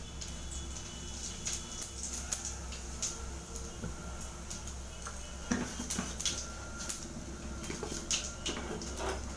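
Scattered clinks and knocks of kitchen utensils as a spice jar is handled over an aluminium kadai, over a steady low hum.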